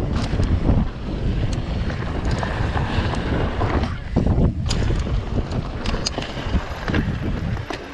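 Wind buffeting the microphone of a camera on a mountain bike running fast down a dirt slope, a loud, rough rumble, with scattered sharp clicks and rattles from the bike. The rumble eases near the end as the bike slows.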